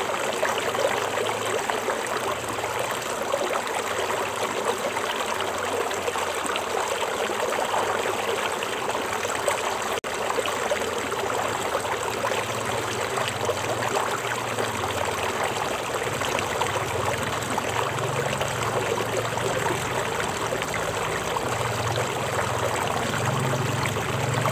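Stream water flowing steadily, an even rushing wash with no breaks.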